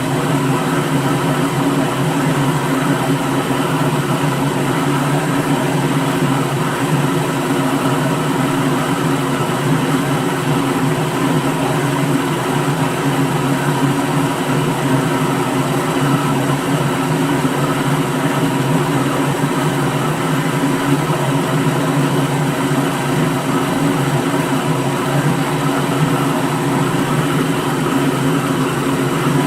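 Electric kitchen blender running steadily at a constant speed: an unbroken motor hum and whir that never changes in pitch or loudness.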